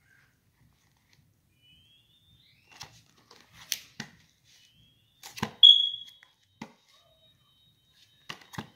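Plastic Blu-ray case in a cardboard slipcover being handled and turned over: scattered clicks, taps and light knocks. A short high-pitched tone a bit past halfway is the loudest sound, and it fades over about half a second.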